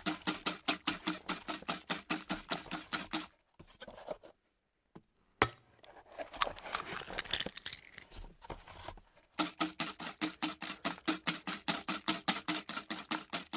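Rapid, even clicking, about five clicks a second, which stops about three seconds in. After a pause there is one sharp click and some faint irregular sounds, and then the clicking starts again for the last few seconds.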